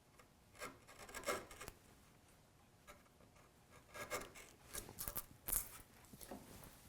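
Wood chisel paring waste from a hinge leaf mortise in a door edge, with faint short scraping strokes as chips lift out. The strokes come in two quick groups, about a second in and about four seconds in.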